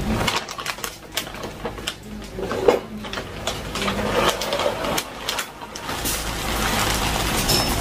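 Plastic dog-food bag crinkling and rustling as it is handled and tipped, with scattered clicks. About six seconds in, dry kibble starts pouring into a plastic container as a steady rattling hiss.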